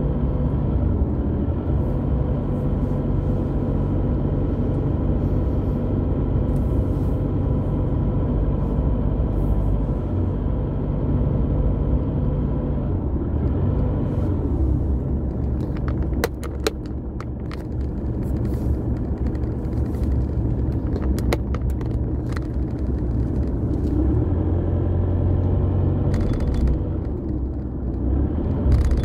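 Car engine and tyre rumble heard from inside the cabin while driving on a rough rural road, steady throughout, with a cluster of sharp clicks a little past halfway and a few more near the end.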